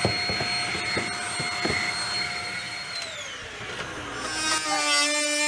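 Handheld vacuum cleaner running with a steady whine as it sucks up sawdust, with a few clicks, then switched off about three seconds in, its motor pitch falling away as it spins down. Music begins near the end.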